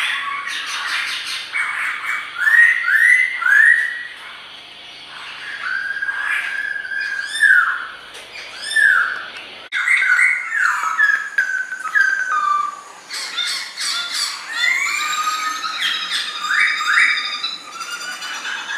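Black-throated laughingthrush singing: a long, varied run of loud whistled phrases made of slurred notes that swing up and down, with a short lull a few seconds in.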